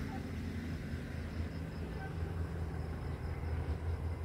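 Wind blowing across a phone's microphone, a steady low rumble.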